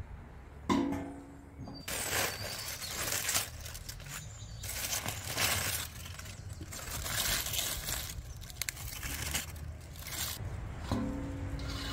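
Aluminium foil crinkling and rustling in irregular bursts as it is pulled off roasted lamb inside a clay tandoor. A short ringing sound comes near the start, the loudest moment, and again near the end.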